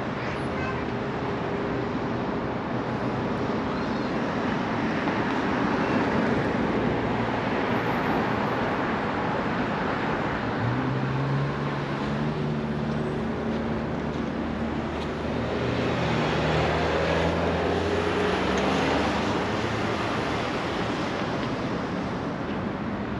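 Street traffic: cars passing on a road over a steady outdoor hiss, with engines rising in pitch as vehicles pull away about halfway through and again later.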